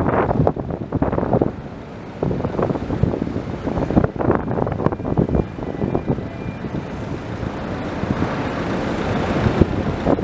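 Heavy machinery noise, a steady low rumble with irregular knocks and clatter, and an even hiss that swells near the end.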